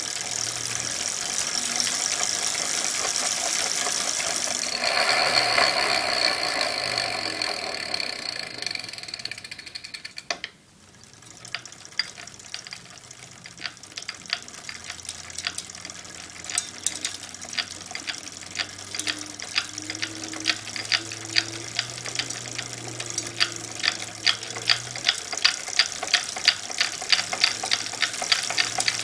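A steady rushing hiss cuts off suddenly about ten seconds in. Then the A2B Metro electric bike's drivetrain, pedaled, makes a loose creaking knock: a run of sharp clicks that come faster and louder toward the end. The owner suspects the stock under-lubricated 7-speed 11-28T freewheel.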